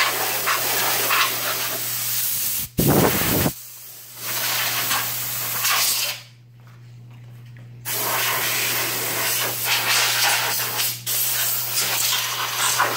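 Can of compressed air duster blowing dust out of a CRT monitor's chassis through its straw: three long hissing bursts, with pauses about three and about six seconds in. A brief loud low rumble comes about three seconds in.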